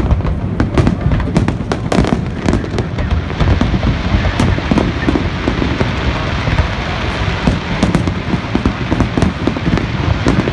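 Large aerial fireworks display: a continuous barrage of overlapping booms with many sharp cracks and crackles on top. The cracks come thickest in the first few seconds and again late on.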